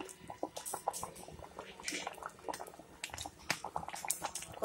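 Thick payasam of jaggery, coconut milk, rice and cowpeas boiling hard in an open aluminium pot, its large bubbles popping and plopping irregularly, several a second.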